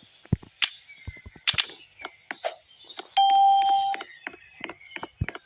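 Scattered light clicks and taps, then a single electronic beep about three seconds in, held for just under a second.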